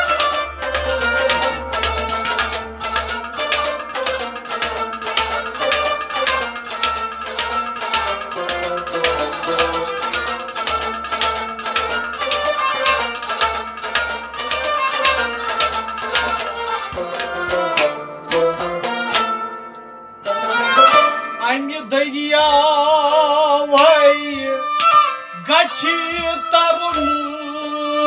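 Kashmiri folk music: a plucked rabab plays a running melody over fast, even hand strokes on a clay-pot drum (noot). After about 20 seconds the strokes thin out and a held melody line with a strong wavering vibrato comes in over the strings.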